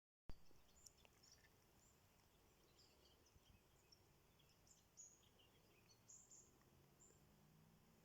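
Faint, scattered chirps and short calls of small birds over a low, even background hiss.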